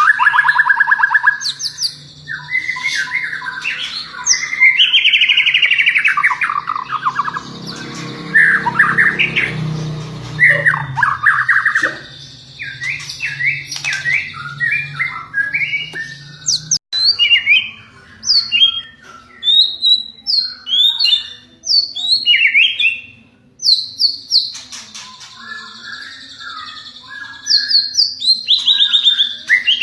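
White-rumped shama (murai batu) singing a long, varied song of fast trills, rising and falling whistles and harsh squawking notes, phrase after phrase with short pauses.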